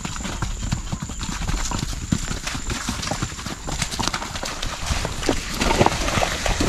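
Horses' hooves clip-clopping over grass and soft ground as a ridden horse and a loose herd move at a trot. The hoofbeats get louder and busier about four seconds in.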